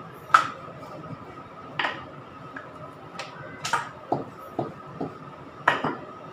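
Steel pots and lid clinking and knocking as they are handled and set down on the stove, about seven separate knocks, over a faint steady hum.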